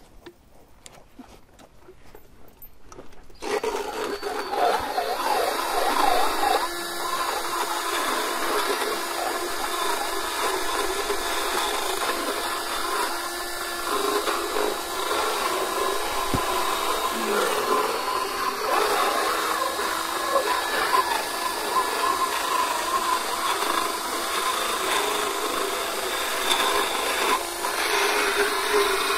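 Motorized dental float grinding down a horse's uneven teeth. It starts about three and a half seconds in and then runs steadily, its grinding pitch wavering as the rasp works across the teeth.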